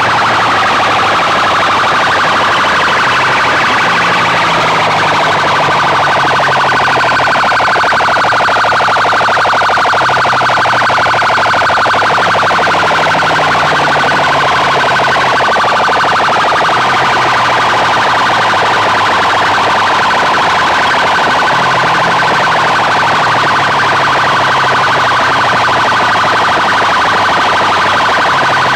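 A stack of horn loudspeakers blasting a very loud, harsh siren-like wail without a break. A low stepping tone underneath comes back about every nine seconds.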